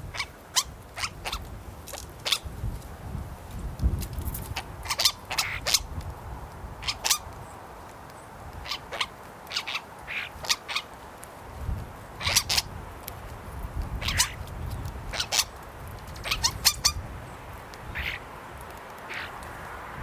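A common starling pecking at a suet ball in a wire-cage feeder: irregular sharp taps of its beak, often in short clusters.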